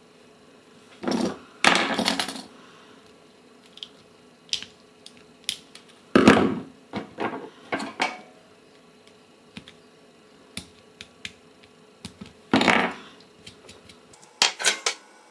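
Hand tools worked against a small copper stripboard: several short bursts of scraping and rubbing, each under a second, with scattered small clicks and taps between them.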